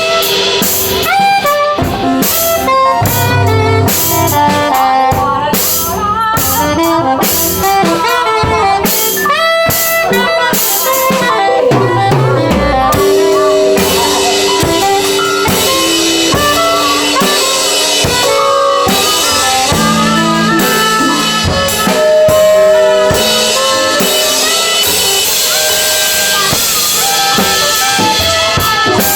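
Live improvised band music: a drum kit played busily under several pitched instruments. About halfway through the drumming thins out while long held notes carry on.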